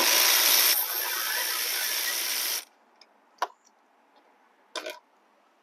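Cordless electric ratchet with a 10 mm socket running for about two and a half seconds, spinning out the bolt that holds the air box, louder in the first moment and then cutting off. A few light clicks of tools follow.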